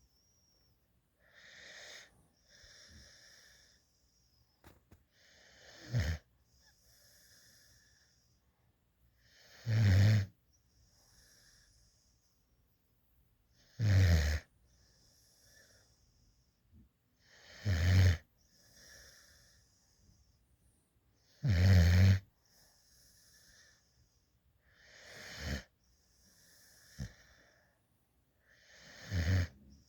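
Black Mouth Cur–Lab mix puppy snoring in deep sleep. There is a snore about every four seconds, the louder ones with a low rumble, each followed by a softer breath.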